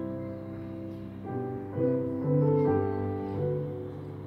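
Steinway grand piano played live: ringing chords that die away slowly, with fresh chords struck about a second in, just before two seconds and near three seconds.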